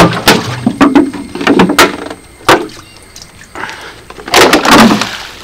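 Water being scooped out of a fish tank with a plastic jar: sharp knocks of the plastic against the water and the tank, with splashing, then a longer rush of water about four and a half seconds in as a scoopful is thrown out.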